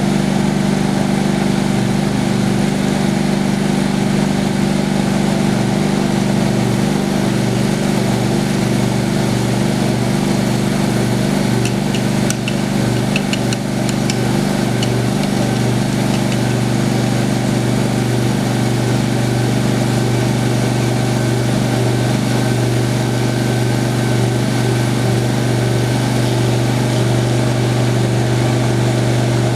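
Homemade sawmill's engine running steadily at a constant speed, with a few light ticks about twelve seconds in.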